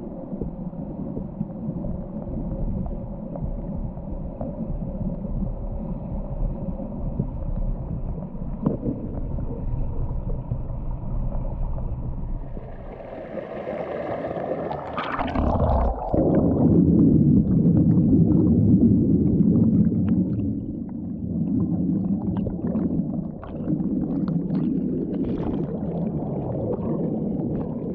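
Mountain stream water flowing and gurgling over rocks, a steady rushing that grows louder about sixteen seconds in.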